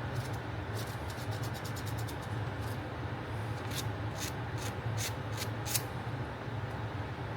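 A hand tool scraping partly cured body filler in short strokes: a quick run of light scrapes early on, then about six sharper strokes, roughly two a second, against a steady low shop hum.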